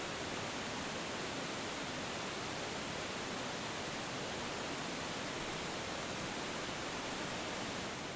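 Rushing water of an Alpine glacial stream: a steady, even rush.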